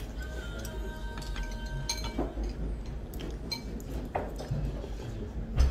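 Spoon and chopsticks clinking against a ceramic bowl a few times over quiet background music, with a sharper knock near the end.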